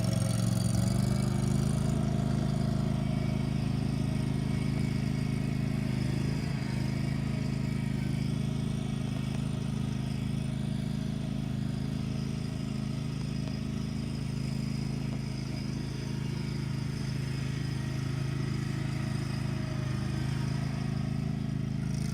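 Engine of a Cub Cadet 36-inch Hydro Lock walk-behind mower running at a steady pace, an even mechanical drone with no change in speed.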